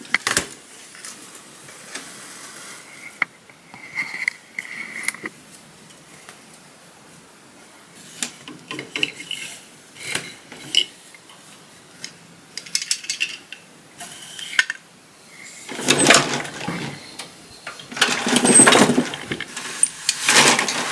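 16-shaft Harris table loom being worked by hand: scattered light clicks and taps as the weft is woven in, then louder clattering twice near the end as the loom's shafts are changed.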